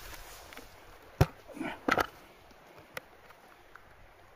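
A few scattered sharp clicks and knocks, the loudest about a second in, with two more around two seconds in and one near three seconds.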